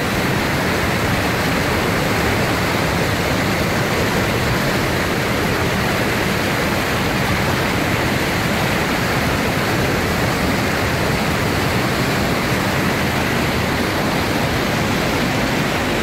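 Låtefoss waterfall's whitewater pouring over and between boulders: a loud, steady rushing of water.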